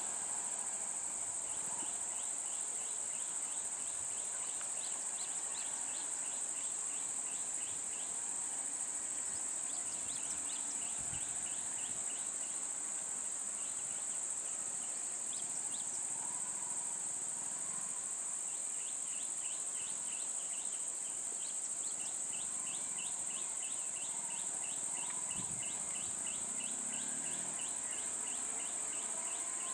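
Steady, high-pitched drone of insects, with rows of quick repeated chirps that fade in and out over it.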